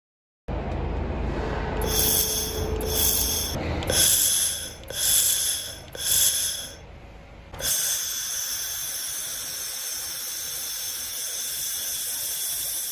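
Handheld 1500 W fiber laser welding machine at work: a low hum with about five short hissing bursts, each under a second, then from about eight seconds in a steady, even hiss.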